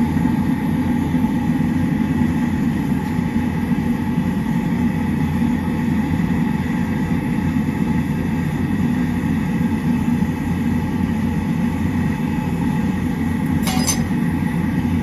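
Blacksmith's forge running loudly and steadily as a steel knife blade heats for hardening, with a faint steady whine over the low rushing noise. A single short clink near the end.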